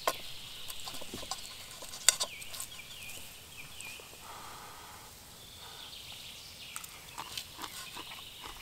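A person eating a first taste of freshly cooked food: chewing and mouth noises, with a few sharp clicks of a utensil.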